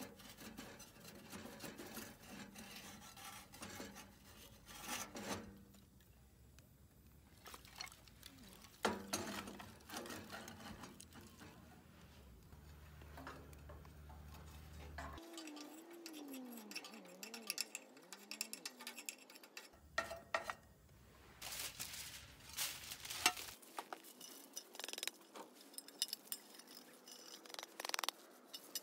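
Steel ash drawer of a wood-burning camp stove handled with gloved hands: scattered metal clinks, knocks and scrapes as the drawer is slid out and lifted, then a soft rustle as ash is tipped onto aluminium foil near the end.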